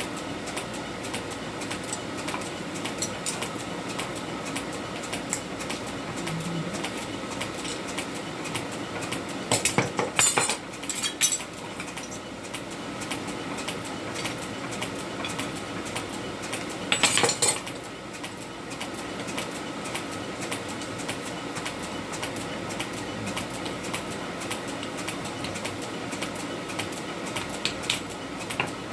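Rapid light metallic clinking and tapping of blacksmith's work on steel, over a faint steady hum, with louder noisy bursts about ten seconds in and again about seventeen seconds in.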